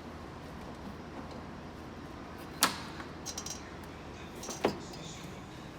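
Plastic front bumper cover being fitted back onto a car: two sharp knocks about two seconds apart, with a few light clicks between them.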